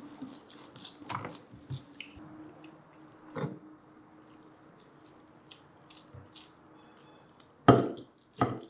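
Soft eating sounds, chewing and small clicks from handling the grilled chicken shashlik, over a faint steady hum. Near the end come two loud sharp knocks.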